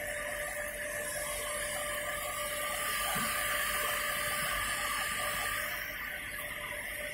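Karnaval cotton candy machine running, its spinning head giving a steady motor hum with a whirring hiss.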